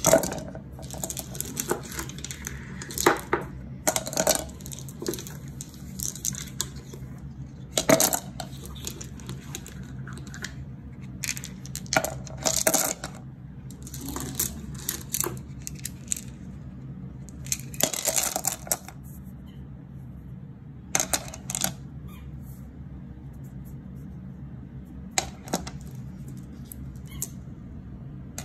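Smoothed tumbled stones being dropped by hand into a rock tumbler barrel, clacking against the stones already inside. Irregular single clacks, with a few quick rattling clusters as several stones go in together, as the barrel is loaded for the pre-polish stage.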